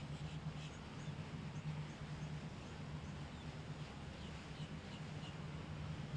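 Steady low drone of a boat engine running, with faint short bird chirps scattered over it.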